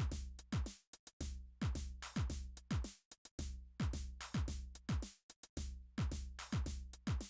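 Background music with a steady electronic beat: deep kick drums that drop in pitch, with sharper hits between them.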